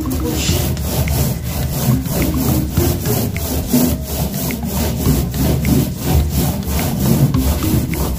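Paintbrush loaded with latex paint rubbed back and forth on a plywood wall, a scratchy bristle rasp in quick, regular strokes.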